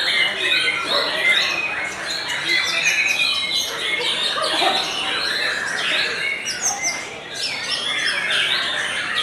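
White-rumped shama (murai batu) singing a fast, continuous stream of varied whistles and chirps, overlapped by other songbirds singing at the same time.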